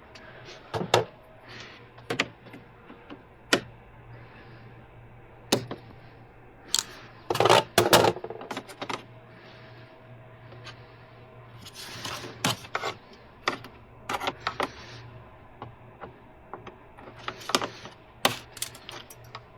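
Hand tools clicking, tapping and clattering against small plastic and metal parts as a stubborn fastener is worked loose, in irregular single clicks with the loudest flurry of knocks about 7 to 8 seconds in.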